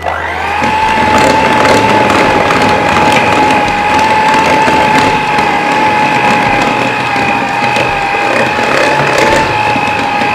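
Electric hand mixer switched on and running at a steady low speed, beating flour into creamed butter and sugar; the motor whine comes up to speed just as it starts, then holds steady.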